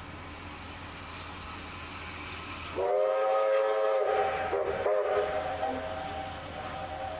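A locomotive whistle sounds about three seconds in. It is a chord of several tones: a long blast of about a second and a half, a brief break, then a shorter blast, trailing off weaker to the end. Under it runs a steady low rumble.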